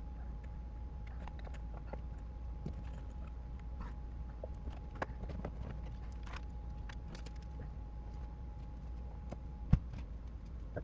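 A steady low hum with a faint high tone, and scattered light clicks and taps. There is one sharper click near the end, and the tone stops just before it.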